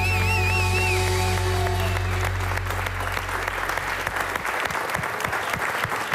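A live band ends a song on a held chord, with a high note wavering in vibrato that stops about a second in. The low notes die away about four seconds in. A studio audience applauds, the clapping growing as the music fades and taking over by the end.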